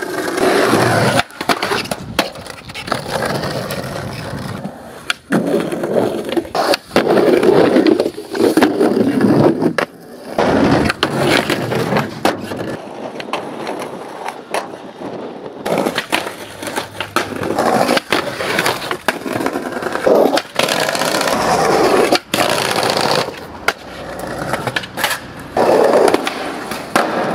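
Skateboard wheels rolling on pavement, with the sharp cracks of tails popping and boards landing, and boards grinding and sliding along concrete and wooden ledges, over several short clips.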